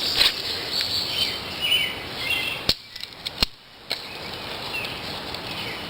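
Dry sticks being handled and snapped while a trap frame is built, with two sharp cracks about halfway through. Faint bird chirps sound in the background.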